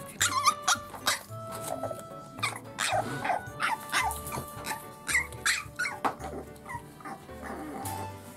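Frenchton puppy making short yips and whines, with sharp clicks among them, over background music with a repeating bass beat.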